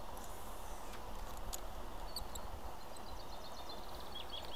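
Small birds chirping over a steady outdoor hiss and low rumble: a few single chirps, then a quick series of chirps from about three seconds in.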